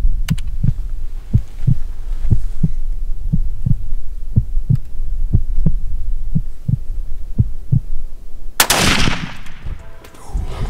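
A heartbeat sound effect, a slow double thump about once a second. About eight and a half seconds in, a single loud rifle shot from a scoped hunting rifle cracks and dies away over about a second: the shot taken at a mule deer buck.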